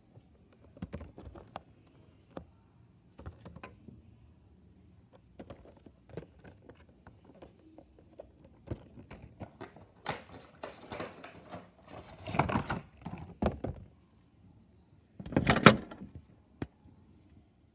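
A Funko Pop cardboard window box and its clear plastic packaging being handled: scattered light taps and clicks, then denser rustling and scraping about ten seconds in, and a louder rustle near the end.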